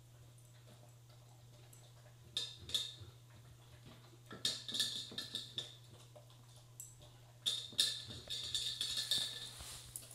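A dog eating dry kibble from a metal bowl: crunching, with the food and the bowl clicking and clinking in three short bursts.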